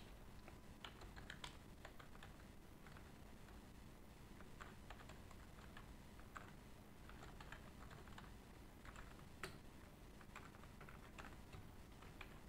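Faint typing on a computer keyboard: irregular key clicks, with one sharper click about nine and a half seconds in.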